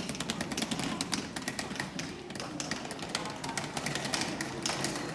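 Many quick, irregular taps and clicks over a steady background hum.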